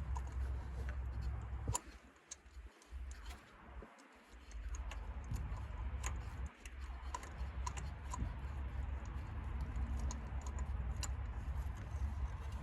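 Scattered light clicks and taps of a spark plug socket and small tool parts being handled, over a low rumble that drops out for a moment between about two and four seconds in.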